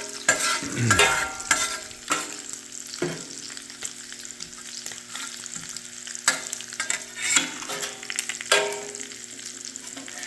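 Bacon and sausages sizzling steadily on a VEVOR 21-inch commercial electric griddle, with several sharp clicks and scrapes of a spatula against the flat griddle plate as the food is moved.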